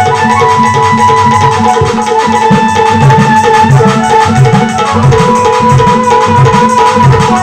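Dholak drumming, a fast steady rhythm of deep strokes, under a held melodic line from an accompanying instrument.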